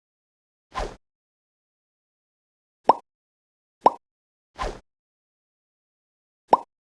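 Short editing sound effects separated by complete silence: five brief hits, two of them softer noisy bursts about a quarter second long (about a second in and past the midpoint) and three sharper, shorter pops (around three and four seconds in and near the end).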